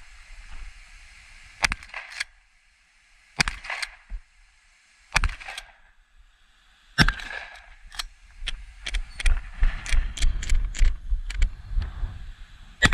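Shotgun firing slugs, four loud shots about a second and three-quarters apart, each followed by a quick clack of the action being cycled. In the last few seconds come rapid clicks and rattles over a low rumble.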